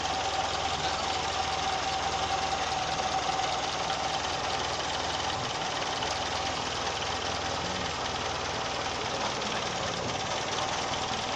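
Daihatsu Zebra's four-cylinder engine running steadily at idle, with a thin steady whine that fades out after about seven seconds.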